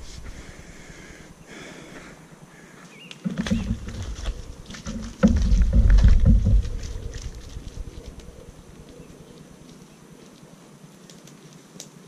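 Wind buffeting the microphone in two strong gusts, about three and five seconds in, with a rustling crackle of grass and reeds, then dying down to a light breeze.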